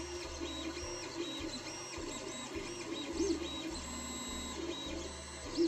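Creality Ender 3D printer printing, its stepper motors whirring in short rising-and-falling tones as the print head shuttles back and forth over a low on-off motor hum.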